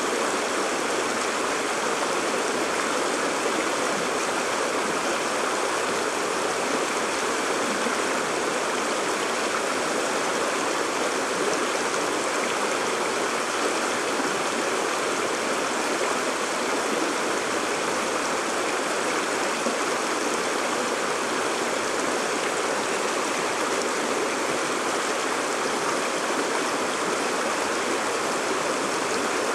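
Shallow stream flowing and babbling over rocks: a steady, even rush of moving water.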